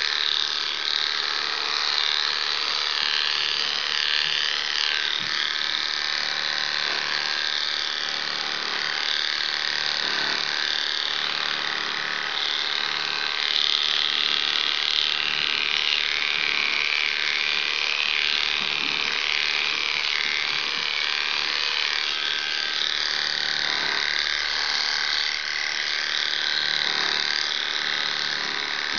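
Electric dog clippers buzzing steadily as the blade cuts through a West Highland White Terrier's wet coat.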